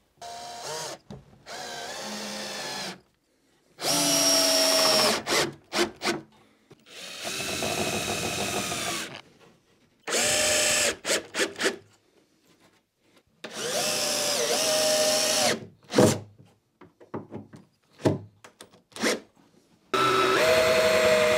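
Bosch cordless drill-driver driving screws into wood: about five runs of the motor of one to two seconds each, with short blips of the trigger in between as each screw is seated.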